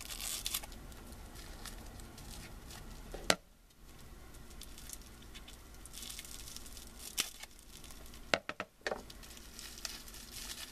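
Packaging being unwrapped by hand, a small toy tightly wrapped in bubble wrap: soft crinkling and rustling, with a loud sharp snap about three seconds in and a few more snaps near the end.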